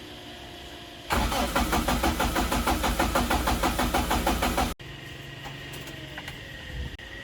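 Daihatsu mini truck's engine being cranked by its starter motor: a fast, even chugging of about eight pulses a second that begins about a second in, lasts about three and a half seconds and stops abruptly.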